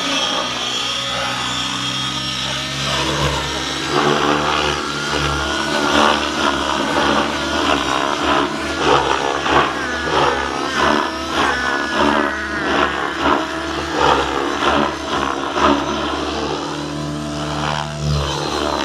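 Radio-controlled helicopter flying 3D aerobatics: its motor and rotor whine rise and fall in pitch, and from about four seconds in the blades chop in a run of pulses, about two a second, as the rotor is loaded in repeated flips.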